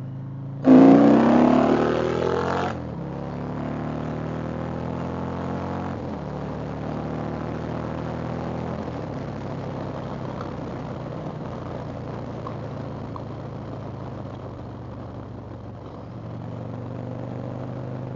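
Indian Chieftain Dark Horse's V-twin revving hard under throttle for about two seconds, its pitch rising. The note then drops back about three seconds in and settles into a steady cruising run under wind and road noise.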